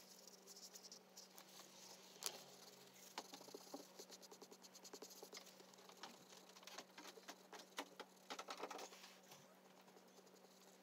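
Faint scratching and rubbing of an oil pastel and a paper tissue on drawing paper, in quick short strokes as the black pastel background is blended, with a sharper tap about two seconds in.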